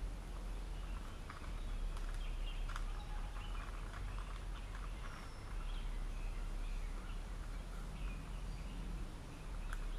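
Birds chirping on and off against a steady low background rumble, with a few faint clicks.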